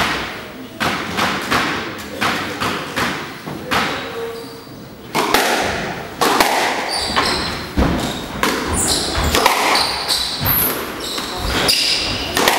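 Squash rally: repeated sharp smacks of the ball off rackets and walls, echoing in the enclosed court, with short high shoe squeaks on the wooden floor. The hits come closer together from about five seconds in.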